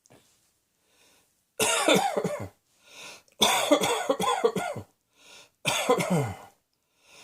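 A person coughing hard in three fits, each a quick run of several voiced coughs, with brief pauses between them.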